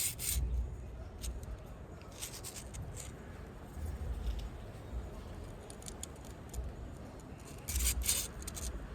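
A plastic fidget toy being worked in the hands close to the microphone: scattered small clicks and scraping, with a quick run of clicks about eight seconds in and low bumps from handling.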